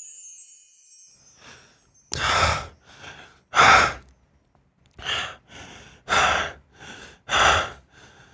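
A man breathing heavily and panting: loud open-mouthed exhales about once a second, with softer inhales between, acted as an exhausted, starving man. Before it, a falling high whoosh fades out over the first second or so.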